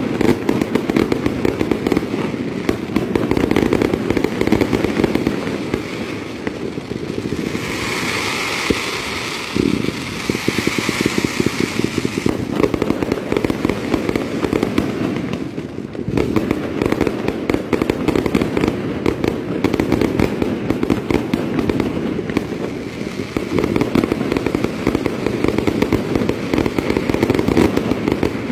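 Fireworks display: a dense, continuous barrage of bangs and crackling from ground fountains and aerial shells going off together. A stretch of stronger hissing lasts about four seconds, starting some eight seconds in.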